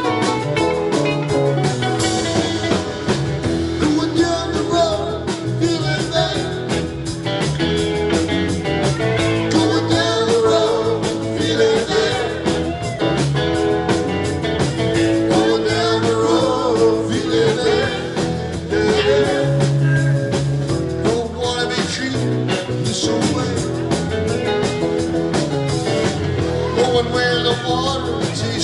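A live rock band playing a bluesy number on electric guitars, bass, keyboard and drums, with a voice singing over it.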